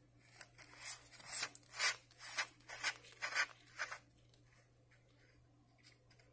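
Handling noise: a hand rubbing and scraping on a thin plastic flower pot as it grips and turns it, about ten quick strokes that stop about four seconds in.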